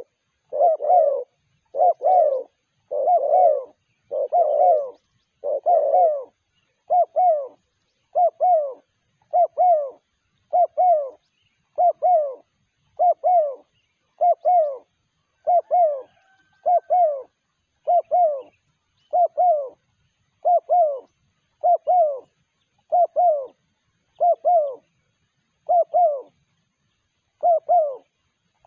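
Spotted dove (terkukur) cooing over and over: short two- to three-note coos about once every second and a bit, spacing out slightly near the end.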